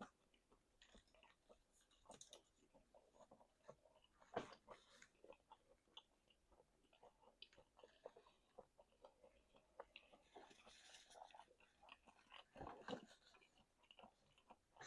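Faint chewing and wet mouth smacks of a person eating chicken wings, a scatter of small clicks with a few louder bites about four seconds in and near the end.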